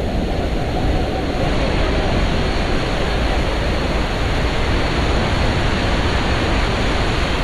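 Steady, loud roar of Niagara Falls' falling water.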